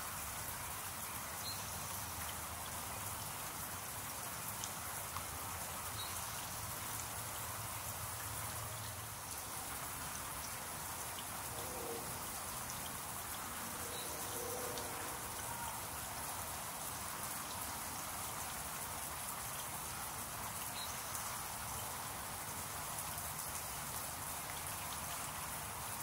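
Backyard water fountain splashing steadily, a continuous patter of falling water drops.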